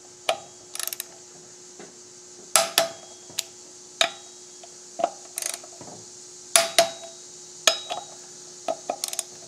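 Torque wrench on brake disc bolts: sharp metallic clicks and short ratcheting rattles, one every second or two, as the bolts are tightened to 20 foot-pounds.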